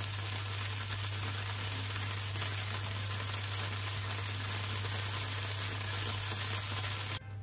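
Frozen gyoza frying in sesame oil over high heat in a nonstick pan: a steady sizzle as the last of the steaming water bubbles off. It cuts off abruptly just before the end.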